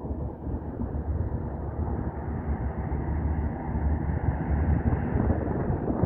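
Wind buffeting the phone's microphone on an open waterfront, a steady, uneven low rumble.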